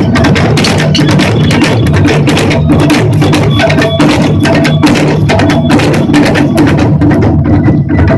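Japanese taiko drum ensemble playing a fast, dense rhythm of drum strikes, loud and continuous.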